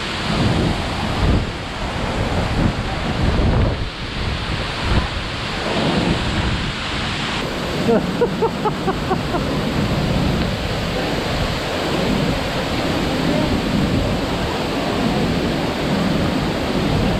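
Waterfall pouring inside a narrow rock cleft: a loud, steady rush of falling water, with wind buffeting the microphone in the first few seconds and a brief burst of voice about eight seconds in.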